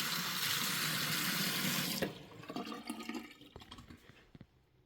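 Bathroom sink tap running into the basin and down its newly replaced drain, shut off abruptly about two seconds in; a few faint drips and ticks follow as the water drains away.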